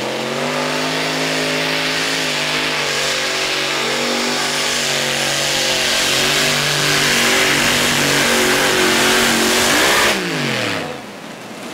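Multi-engine modified pulling tractor running at full throttle under load as it drags the sled, a loud harsh engine note under heavy noise, recorded through a faulty microphone. About ten seconds in the throttle is cut and the engine pitch falls away quickly as the engines wind down.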